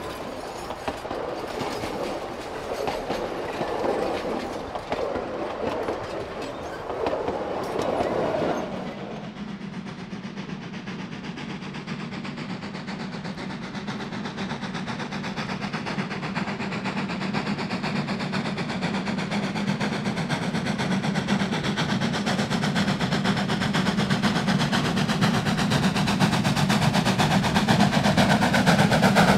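Wooden narrow-gauge passenger coaches rolling past, their wheels clicking over the rail joints. Then, about nine seconds in, the sound changes to a working steam locomotive, Durango & Silverton K-36 2-8-2 No. 482, approaching up the grade and growing steadily louder.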